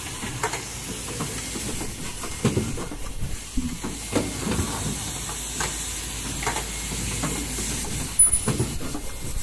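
Fully automatic N95 cup-mask machine line running: pneumatic cylinders hissing and mechanisms clacking at irregular intervals over a steady machine noise. The loudest clatter comes just after the start and again about six seconds in.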